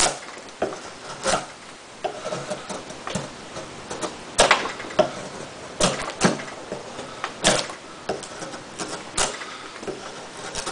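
Spyderco Tenacious folding knife with an 8Cr13MoV blade shaving thick curls off a block of wood by hand: a dozen or so sharp cutting strokes at an uneven pace, roughly one a second.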